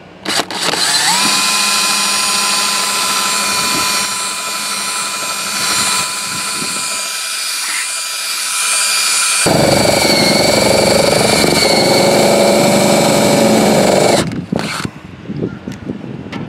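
Power drill with a spade bit boring a 1-inch hole in an RV's body panel. It spins up to a steady whine, and about nine seconds in the sound turns rougher and heavier with a wavering pitch. It stops about fourteen seconds in, and a few handling knocks follow.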